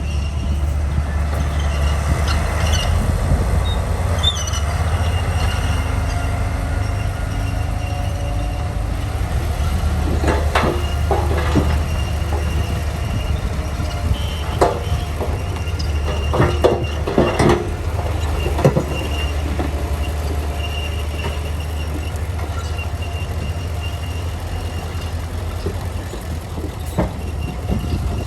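Komatsu D41P crawler bulldozer working: the diesel engine runs with a steady low drone while the steel tracks squeal, with a run of sharp metallic clanks in the middle.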